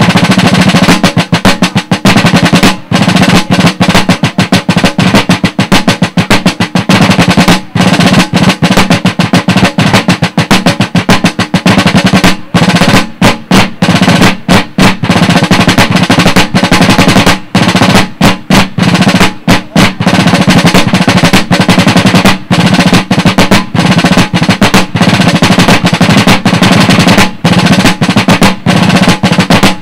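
Two traditional rope-tension snare drums played together with sticks in rudimental fife-and-drum style: dense rolls and rapid strokes, with a few short breaks between phrases.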